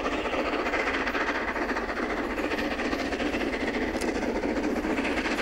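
Steam-hauled passenger train running on the line, a steady rushing rail and running noise.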